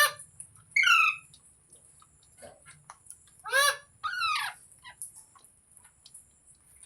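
Green parrot calling: two pairs of loud, harsh squawks, some gliding down in pitch, with faint clicks in between.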